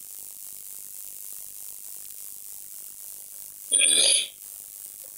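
Steady hiss from the microphone, broken near the end by a single loud burst of sound lasting about half a second.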